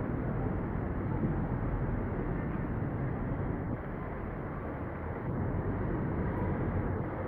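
Steady outdoor city street background noise, a low even rumble with no distinct events.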